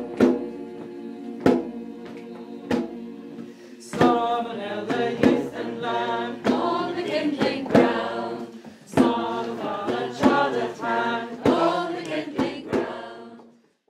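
Music: a group of voices singing a chant-like song over a held drone and a slow, steady drum beat. The voices come in about four seconds in, and the music fades out at the end.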